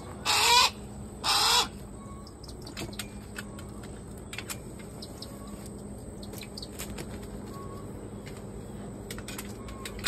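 Two harsh, rasping screams from a Harris's hawk, each about half a second long, in the first two seconds, followed by faint scattered ticks and rustling.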